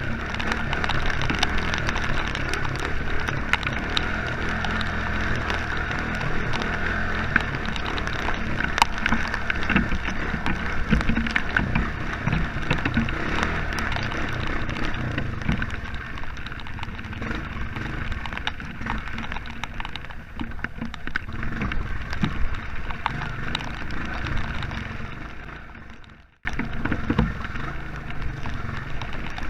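Honda Fourtrax ATV's single-cylinder four-stroke engine running as it rides a muddy trail, with rain and flung mud ticking and crackling on and around the camera. The sound dies away near the end, then starts again abruptly.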